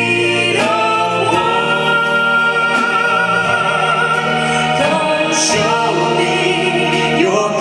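Live band playing a duet song, singers holding long notes over a steady accompaniment.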